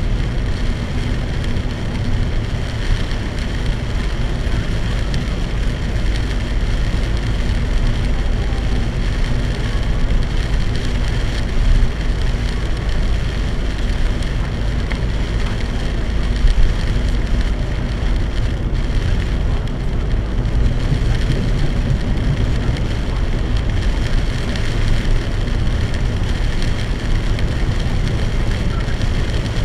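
Torrential rain drumming steadily on a moving car, over a steady low rumble of tyres and road noise, heard from inside the cabin.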